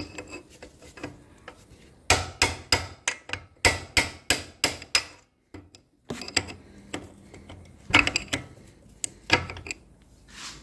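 Hammer blows on the tab lock washer of the gearbox sprocket nut, peening it over to lock the nut: a run of about ten quick sharp strikes, roughly three a second, then lighter scattered taps.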